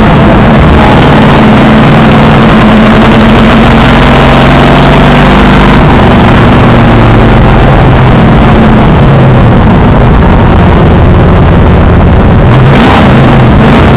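Race car engine running hard at racing speed, heard loud from inside the car, with a steady engine note that shifts slightly as the car laps the track.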